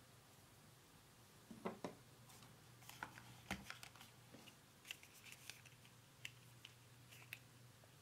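Faint clicks and rustles of hands handling a smartphone's boxed accessories and packaging, a dozen or so short sharp sounds starting about a second and a half in, over a low steady hum.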